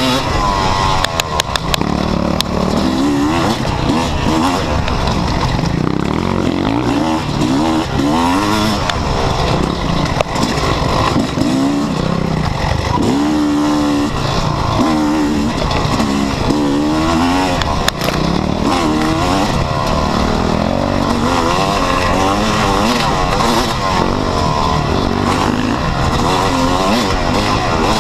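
Yamaha YZ250 two-stroke dirt bike engine being ridden hard, its revs rising and falling constantly with the throttle and gear changes. A few sharp clicks come about a second in.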